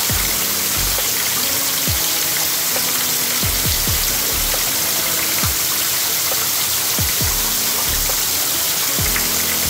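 Steady rushing water of a creek or waterfall, with background music over it: deep bass hits that slide down in pitch, recurring about once a second, and short low notes.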